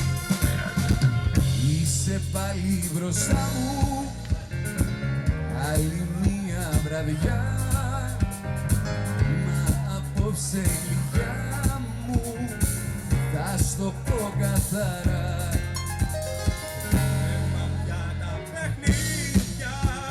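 Song playing: drums keeping a steady beat under a bass line, with a singing voice.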